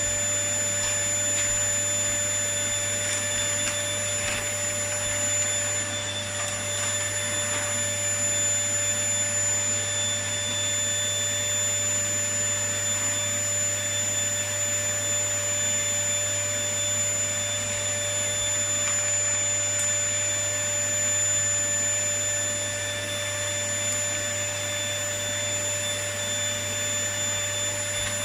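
Vacuum cleaner running steadily, a continuous motor hum with a constant high whine.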